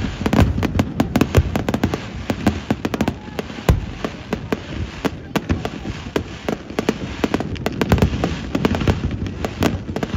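Dense barrage of aerial fireworks: rapid crackling reports and booms, many a second with no let-up, over a continuous low rumble.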